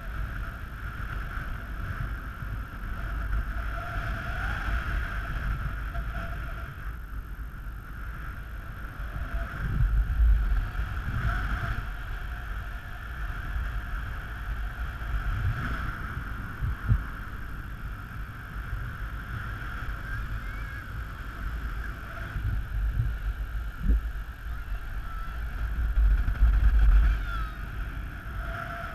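Wind buffeting the microphone of a camera on a paraglider in flight: a steady low rumble that gusts harder about ten seconds in and near the end. Over it runs a constant high tone.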